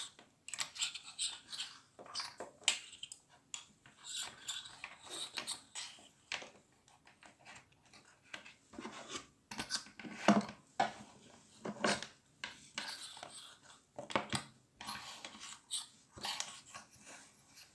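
Irregular clicking, knocking and clattering of small hard parts being handled and set down on a table, with the loudest knock about ten seconds in.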